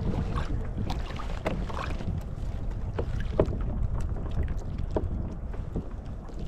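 Low wind rumble on the microphone of a sit-on-top kayak at sea, with scattered small clicks and knocks as fish and fishing tackle are handled on board. A sharper knock comes about three and a half seconds in.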